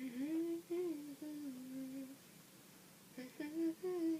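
A woman humming a tune with her lips closed: held notes sliding gently up and down, in one phrase of about two seconds, then a pause of about a second before she starts humming again.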